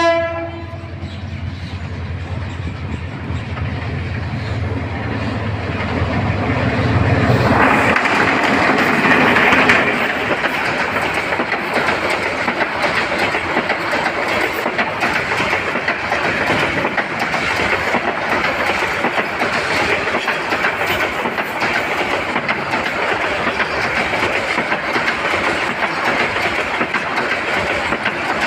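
Intercity train passing close by. A low engine hum builds over the first seven seconds or so. Then, about eight seconds in, the carriages roll past with a steady rush and the clickety-clack of wheels over rail joints.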